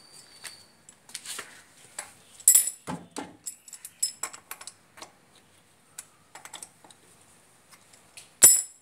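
Irregular metallic clicks and clinks of hands handling the wheel nuts on a Bajaj three-wheeler's wheel hub, the sharpest clink near the end.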